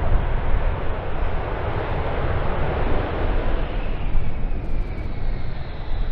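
F-35B Lightning II jet engine and lift fan at takeoff power during a short takeoff roll: a loud, steady roar. From about four seconds in, a high whine slowly falls in pitch.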